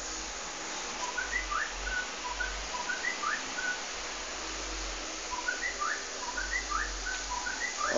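A songbird singing short repeated phrases of quick rising and falling chirps, with a pause of a second or two in the middle, over a steady background hiss.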